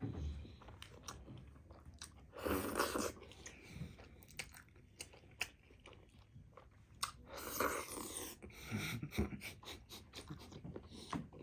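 Close-up chewing and biting of buff momo dumplings, with many small wet mouth clicks. There are two louder noisy bursts, one about two and a half seconds in and another a little after seven seconds.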